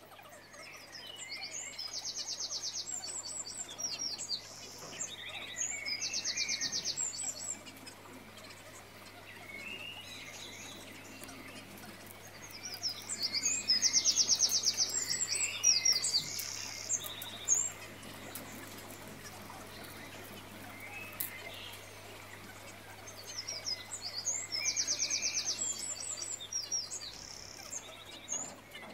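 Birdsong: high chirps and fast buzzy trills sung in three similar bouts about ten seconds apart, over a faint steady low hum.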